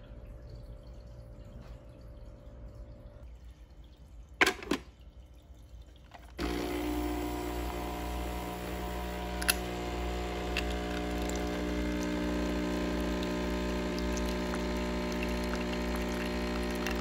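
Dolce Gusto-type capsule coffee machine: a sharp clack, then about two seconds later its pump starts suddenly and runs loud and steady with a low vibrating hum while espresso pours into a mug.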